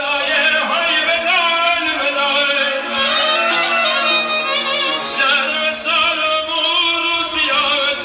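Background music: a solo voice singing a wavering, ornamented melody over a steady low drone.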